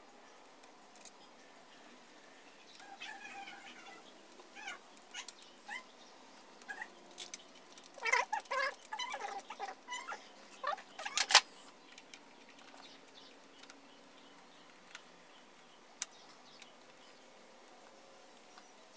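Faint animal calls that rise and fall in pitch, several in a row over a few seconds, with one sharp click about eleven seconds in.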